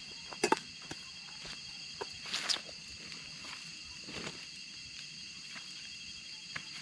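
Steady high-pitched chorus of night insects shrilling in several layers, with scattered knocks, clinks and scuffs of a person handling a bowl and stepping about on dry ground.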